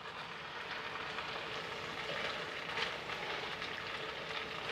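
Beef pasta sizzling in a pan: a faint, steady frying hiss with fine crackle.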